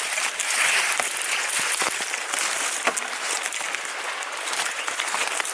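Dry brush, twigs and leaves rustling and crackling as someone pushes through thick undergrowth on foot, with many small snaps.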